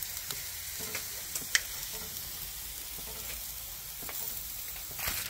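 Porterhouse steak sizzling steadily on a gas grill's grate, with a few small pops of fat. Near the end, aluminium foil crinkles.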